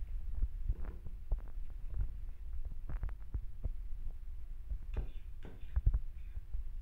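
Metal spoons scooping ravioli filling from a ceramic bowl and dabbing it onto a pasta sheet: scattered light clicks and scrapes over soft low thumps, with a faint steady hum behind.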